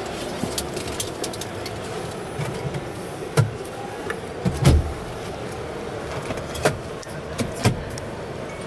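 Steady background hubbub of a busy exhibition hall, with a few dull knocks and thumps about three and a half, five, six and a half and seven and a half seconds in, the loudest just before the five-second mark. The electric truck itself makes no running sound.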